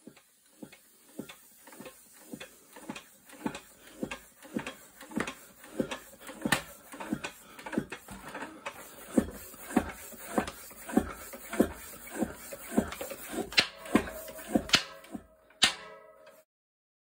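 Floor pump worked by hand at about two strokes a second, each stroke pushing a rush of air into a tubeless road tyre, a Continental Grand Prix 5000 TL; the strokes grow louder as it goes. Near the end come sharp pops as the tyre bead snaps onto the rim and the tyre seats.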